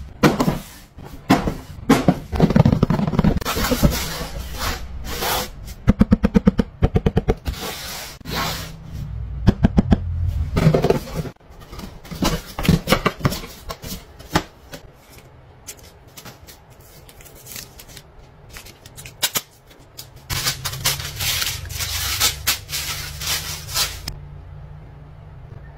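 Cardboard helmet box being handled and opened: taps, scrapes and flap movements of the cardboard, with a fast rattling run of clicks about six seconds in. Near the end comes a rustle of packaging as the visor is lifted out in its plastic wrap.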